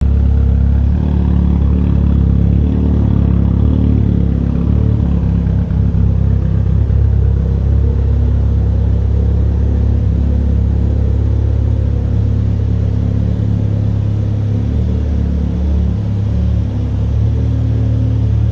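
Built 2.0 L 4B11T turbocharged four-cylinder of a Mitsubishi Lancer Evolution X with an ETS aftermarket exhaust, running at a steady idle with a deep, even rumble.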